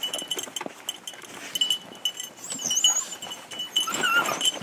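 Beagle whining as it is loaded into the truck's dog box, with one clear rising-and-falling whine near the end, over light metallic jingling from the dogs' collars and leash clips.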